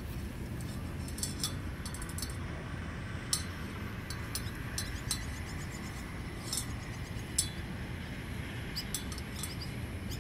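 Dog feeding from a stainless-steel bowl: scattered light metallic clinks as its muzzle and teeth knock the bowl, the loudest about seven seconds in, over a steady low background rumble.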